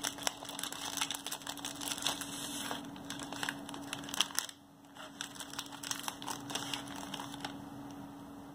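Foil inner bag of a Pocky packet crinkling irregularly as biscuit sticks are handled and drawn out of it. The crinkling pauses briefly about halfway and dies down near the end.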